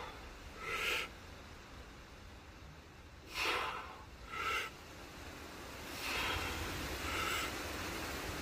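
A lifter breathing forcefully during a set of close-grip barbell bench presses with 90 kg: sharp breaths about a second in and twice around the middle, then heavier, quicker breathing in the last few seconds as the set goes on.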